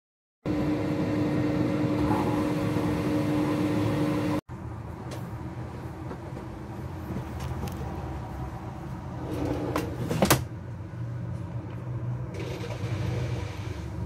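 Philips Twin TurboStar air fryer's fan running with a steady hum and a clear tone; after an abrupt cut about four seconds in, a quieter steady hum with a few sharp clicks, the loudest about ten seconds in.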